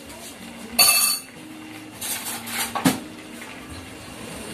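Metal utensils clinking against a steel wok and dishes: one sharp, ringing clink about a second in, then a few lighter knocks and scrapes near the three-second mark.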